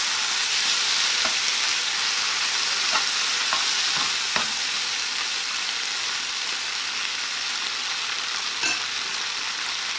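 Leftover chicken curry sizzling in a hot frying pan as it is stirred with a metal spoon, the steady sizzle broken by a few light clicks of the spoon against the pan.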